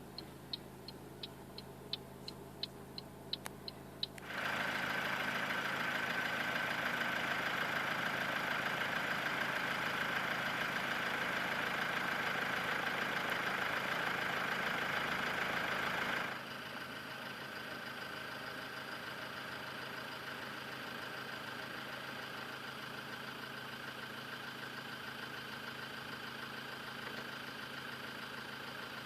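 Hazard-flasher relay ticking about three times a second, then a Toyota RAV4's 2.0-litre four-cylinder diesel suddenly comes in running steadily with a steady whine on top. About 16 seconds in it drops suddenly to a quieter steady idle.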